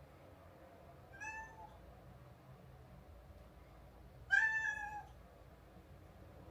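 A house cat meowing twice: a short, softer meow about a second in, then a louder, longer one about four seconds in.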